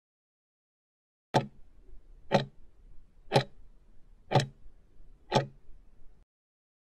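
Countdown-timer tick sound effect: five clock-like ticks, one a second, marking the last seconds of the timer running out.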